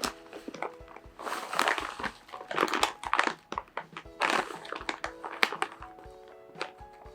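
Soft background music with steady held notes, over irregular rustling and light knocks of things being handled, loudest about a second in, around three seconds in and around four and a half seconds in, with a few sharp clicks after that.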